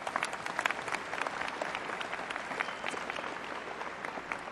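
Audience applauding: a dense patter of many hands clapping that thins slightly toward the end.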